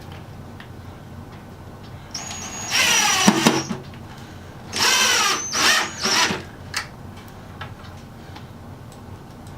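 Power drill running in two short bursts, its motor whine rising as it spins up each time. The second run stops and starts a couple of times.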